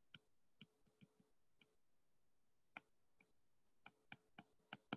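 Faint, irregular ticks of a stylus tapping a tablet screen during handwriting, over near silence; the ticks come more closely together toward the end.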